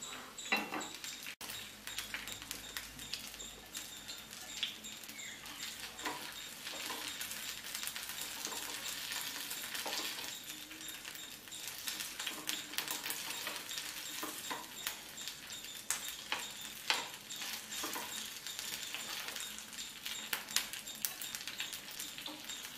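Oil sizzling and crackling steadily around spice-coated boiled egg halves shallow-frying in a nonstick pan. Scattered sharp pops and the clink of steel spoons against the pan come through as the pieces are lifted out.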